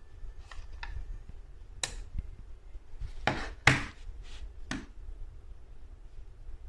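Scattered clicks and knocks, the loudest about three and a half seconds in, over a low steady rumble.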